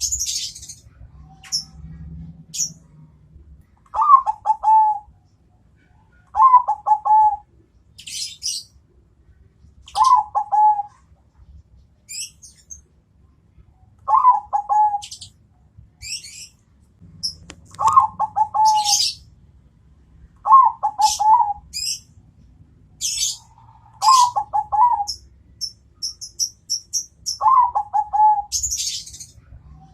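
Zebra dove (perkutut, Bangkok song strain) singing: a short, stuttering cooing phrase repeated eight times, about every three seconds. High, thin chirps of small birds fall between the phrases.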